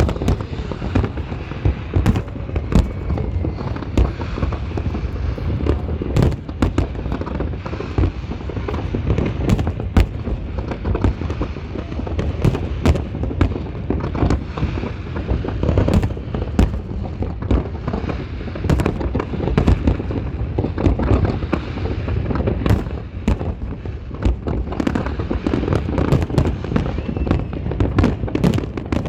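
Fireworks display going off continuously: a dense run of sharp bangs and crackles over a steady low rumble of booming shells.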